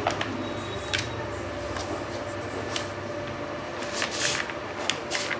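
Dog eating kibble from a plastic bowl: a few scattered crunches and clicks against the bowl, with a short rustle about four seconds in, over a faint steady hum.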